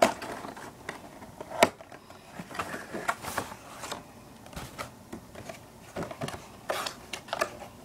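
A cardboard box being opened by hand: scattered clicks, taps and rustles of cardboard flaps and packaging, with one sharp click about a second and a half in.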